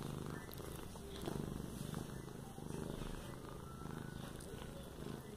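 Domestic cat purring steadily, a continuous low rumble.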